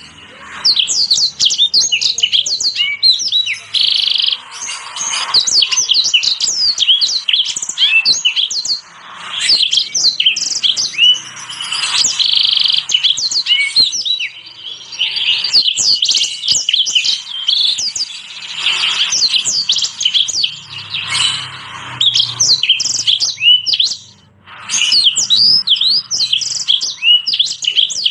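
Small finches and canaries singing a combined tutor song, mixing yellow-fronted canary (Mozambique), black-throated canary, sanger and red siskin, in fast, continuous runs of high chirps and trills. It breaks off briefly twice.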